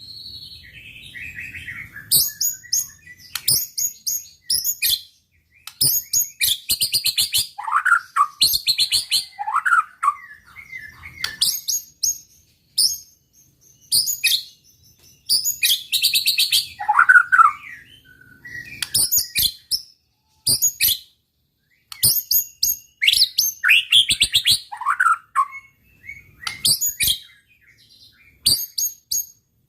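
White-rumped shama singing vigorously in a run of phrases of rapid, sharp repeated notes and trills, some ending in falling whistles, with short pauses between phrases. It is the kind of full song played to provoke rival male shamas.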